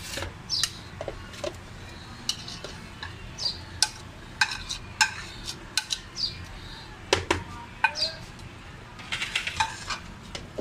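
A spoon scraping and clinking against a plate while marinated chicken mince is scooped off it into a plastic box. The sound is a string of short sharp clicks and scrapes, thickest near the end.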